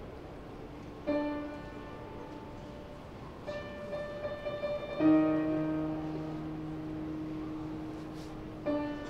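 Solo piano playing slow, sustained chords. A quick run of notes leads into the loudest chord about five seconds in, which rings on for several seconds.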